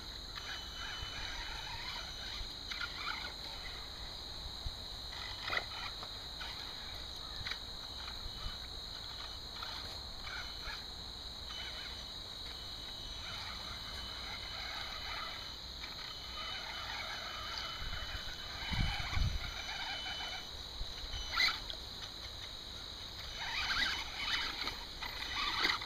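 Water splashing and sloshing as a Traxxas Summit electric RC crawler churns through a shallow creek, with a steady high tone underneath. The splashing comes in uneven bursts and grows stronger near the end.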